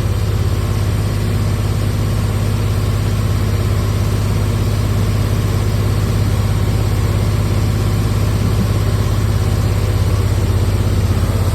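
Hemi engine idling steadily, run with the heater on to bleed air out of the freshly refilled cooling system.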